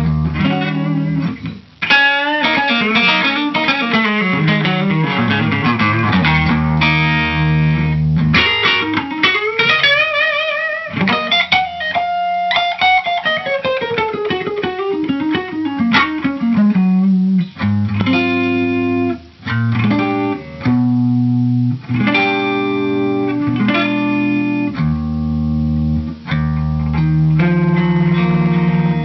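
Electric guitar, a Gibson Les Paul Standard, played through a tube amp. It plays single-note lead lines with bends and vibrato, then held chords in the second half.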